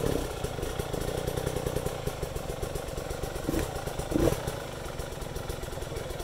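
Off-road dirt bike engine running at low revs as the rider works the bike up a rock step, with a brief louder burst about four seconds in.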